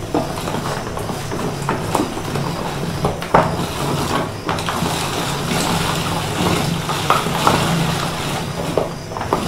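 Hand-operated plastic vegetable chopper being worked to chop tomatoes, its plastic parts knocking and rattling now and then over a steady low hum.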